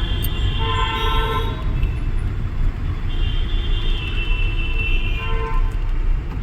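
Vehicle horns honking in dense street traffic: one long honk near the start and another from about three seconds in lasting over two seconds, over a steady low rumble of engines and road noise.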